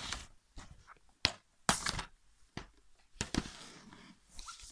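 Plastic DVD cases being handled: a few sharp clicks and knocks, the loudest about two seconds in, with rustling after the last one.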